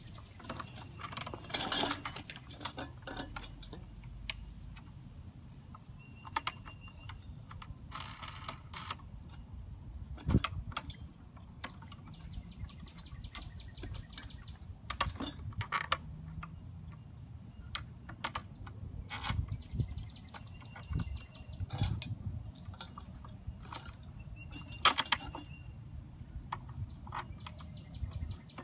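Scattered clicks, taps and short rattles of plastic and metal parts of a Sun Joe electric tiller being handled during assembly, with a sharper click about two seconds in and another near the end.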